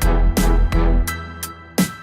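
Intro background music with a steady beat: regular percussion hits over a heavy bass and sustained pitched tones.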